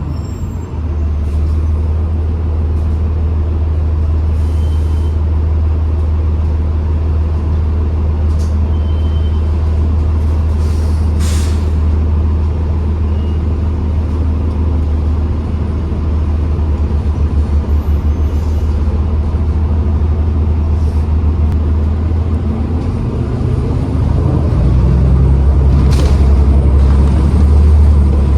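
A New Flyer XDE40 diesel-electric hybrid bus under way, heard on board: a steady low drone of the drivetrain, with short hisses of air, typical of the air brakes, now and then. The drone changes pitch and gets louder a little over three quarters of the way through.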